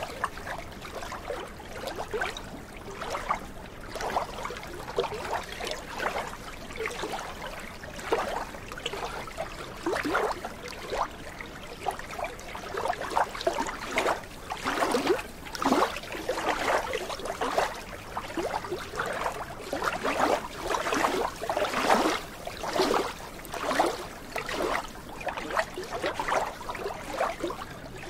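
Small waves of a glacial meltwater lagoon lapping and splashing irregularly against the shore, the splashes coming every second or less and growing louder about halfway through.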